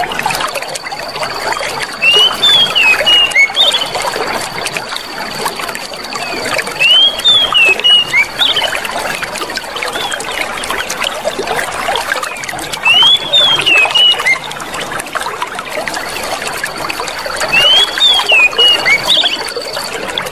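Clear stream water running and gurgling steadily. A short chirping bird phrase comes back about every five seconds, and a thin, steady high tone sounds on and off.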